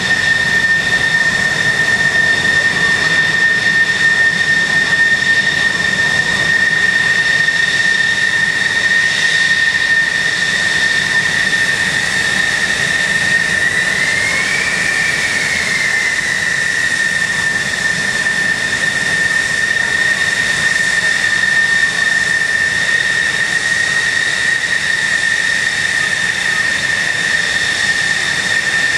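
Jet engine running at idle with a steady high-pitched whine over a rushing hiss. About halfway through, the pitch rises briefly and then settles back.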